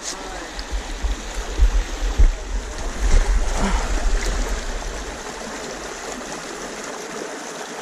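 Small mountain stream rushing over rocks, with low rumbling bumps for roughly the first five seconds, then steady running water.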